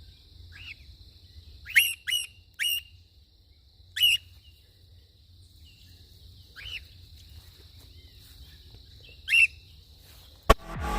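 A cockatiel calling out loudly, about seven short whistled contact calls that each drop in pitch, spaced irregularly. These are the contact calls of a bird separated from its flockmate, which seems really concerned. A sharp click comes near the end.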